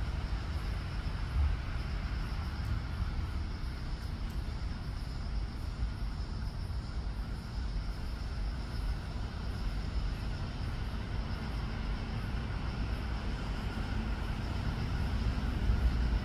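Steady low background rumble with a faint higher hum over it, no distinct events.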